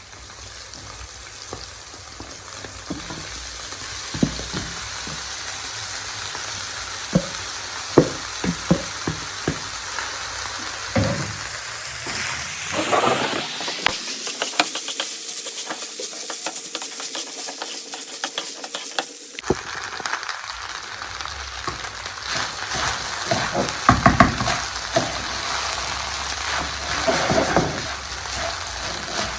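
Food sizzling and frying in a pan, with a utensil stirring and knocking against it in scattered clicks. For several seconds past the middle the sizzle gives way to a steady hum, then the frying and stirring come back.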